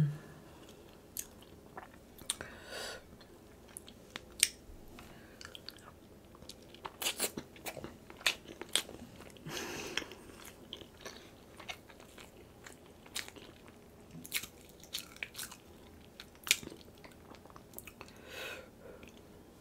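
Close-miked chewing of a hard-boiled egg, with irregular sharp wet mouth clicks and smacks, busiest a few seconds in and toward the middle.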